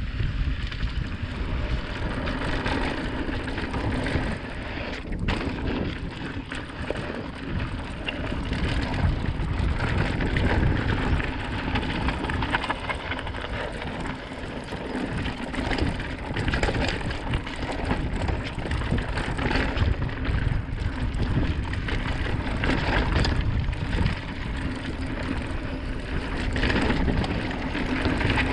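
Wind buffeting the microphone of a camera riding on a moving mountain bike, with the tyre and rattle noise of riding a dirt trail: a steady rushing noise with a heavy low rumble that swells and eases.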